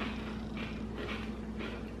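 A person chewing a crunchy Nature Valley Apple Crisp oat granola bar, crunching about twice a second, over a faint steady hum.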